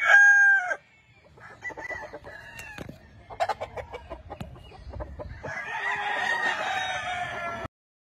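Roosters crowing and clucking: a loud crow ends within the first second, short clucks and calls with a few knocks follow, and a second long crow starts about five and a half seconds in and cuts off abruptly near the end.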